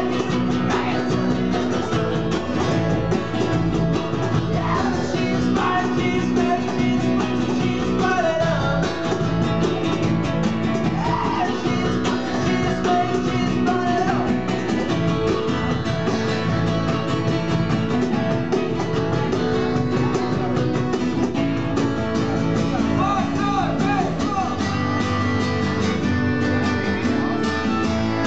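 A band playing live with strummed acoustic guitar and upright bass, and a lead vocal singing in stretches.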